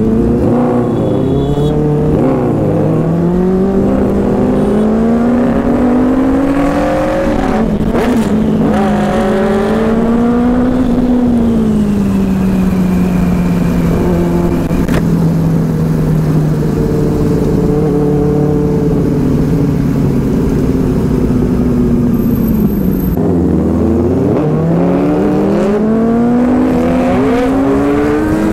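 Benelli 600i's inline-four engine under way, heard from the bike itself, revving up and easing off again and again through the gears. The note drops low about three-quarters of the way through, then climbs back up.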